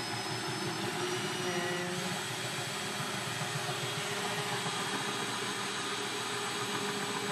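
Drill running steadily with a diamond drill bit grinding into wet porcelain tile.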